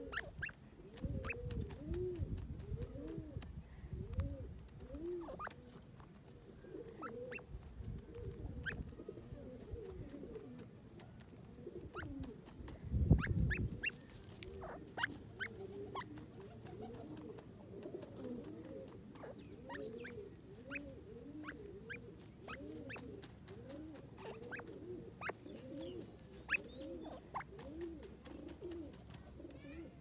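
Grey francolin giving a long run of soft, low, rising-and-falling notes, several a second, as it settles and scrapes in loose soil, with light ticks and scratches. There are a few dull low rumbles in the first half, the loudest about thirteen seconds in.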